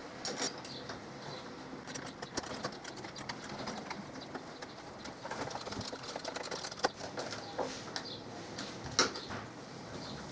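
Scattered clicks and light knocks from a chrome door handle and its fixings being fitted to a uPVC door, the sharpest about two-thirds of the way in and near the end. A bird coos in the background.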